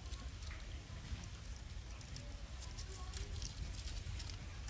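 A steady low rumble, with faint scattered clicks and a few soft, short squeaks from macaques.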